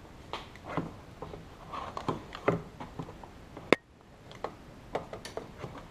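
Hard plastic body panels and push-in plastic fasteners on a Honda Pioneer 1000 being handled and fitted by hand: an uneven series of plastic clicks and knocks. One sharp click a little under four seconds in is the loudest.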